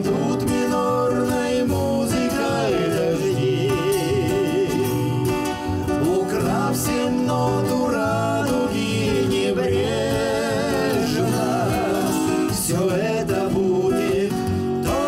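Two men singing a bard song together, accompanying themselves on a twelve-string acoustic guitar and a nylon-string classical guitar.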